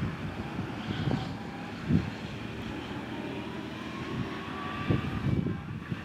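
New Holland T6.175 tractor running steadily under load as it pulls a New Holland BB940 big square baler through a hay windrow, with a few short low thumps from the working machinery.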